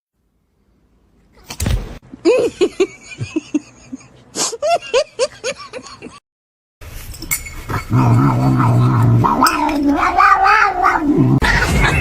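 Cats meowing: a quick run of short meows, then after a brief gap a longer drawn-out yowl over a noisier background.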